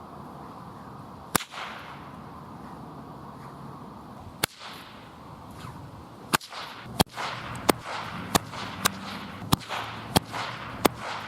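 A 3-metre whip cracking about ten times: two single cracks a few seconds apart, then from about six seconds in a quick run of cracks roughly every two-thirds of a second.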